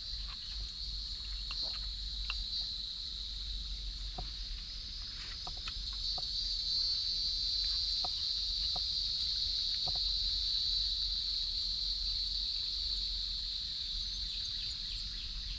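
A steady, high-pitched chorus of insects trilling, with scattered faint clicks.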